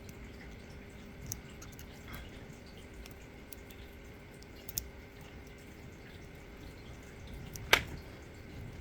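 Small scattered metallic clicks and ticks from a pick working inside an ASSA D12 disc-detainer lock, with one much louder sharp click near the end.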